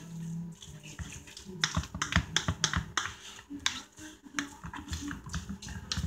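Fork clicking and scraping against the bowl in quick, irregular taps while mashing and mixing potato salad of boiled potatoes, eggs and mayonnaise.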